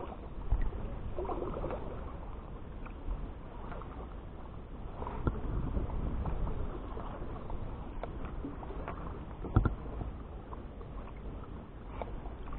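Kayak paddling: the paddle blades dip and splash in choppy river water with a steady wash of water and scattered small knocks. A single sharp knock about nine and a half seconds in is the loudest sound.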